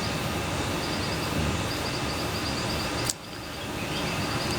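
Steady outdoor background hiss with an insect chirping in short repeated trills. A sharp click comes about three seconds in, after which the background briefly drops and then rises again.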